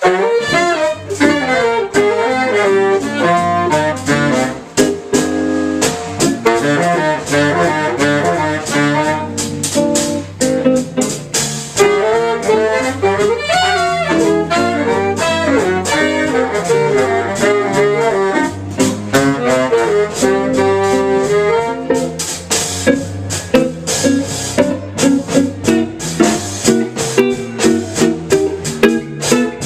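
Bebop jazz played by a small group, with saxophone and brass horns running fast melody lines over a rhythm section.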